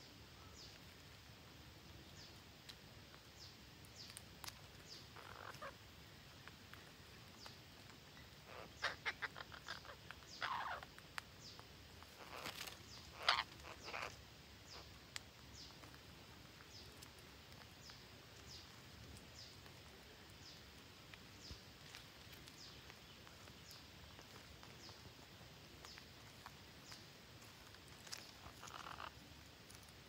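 Green parrots giving short calls: a quick run of chirps about nine seconds in, then a few louder squawks over the next five seconds, with a call again near the end. A faint high chirp repeats every second or so behind them.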